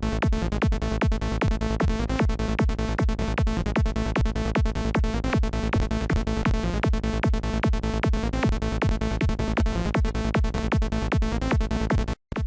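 Psytrance loop playing back: a steady, fast kick and bass pulse with a synth lead melody on top, cutting out for a moment near the end and starting again as the loop restarts.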